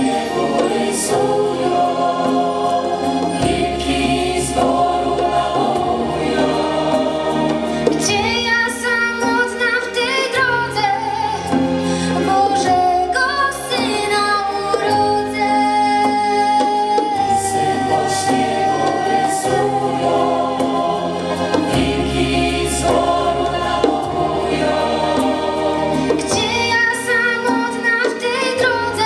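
A Polish Christmas carol performed live: a large choir singing sustained, wavering lines over a band with keyboard, drums and strings.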